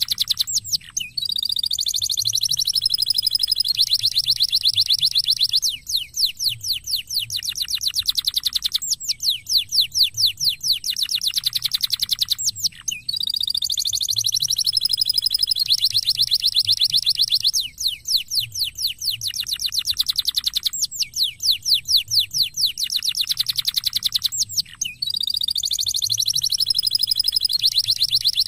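Domestic canary singing a loud, continuous song of fast trills and rolls. It moves through runs of rapidly repeated notes, some sweeping down in pitch and others held high and steady, and the same sequence comes round again about every twelve seconds.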